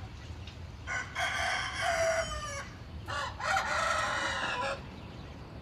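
Gamecock rooster crowing twice, each crow lasting under two seconds, the first starting about a second in and the second just after three seconds.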